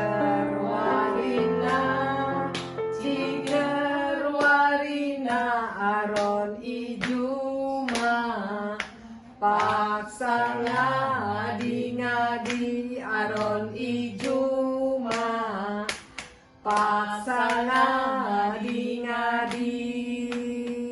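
Women singing a slow song with wavering, vibrato-laden notes over a keyboard accompaniment of held chords and bass notes, with sharp beats or claps marking the time.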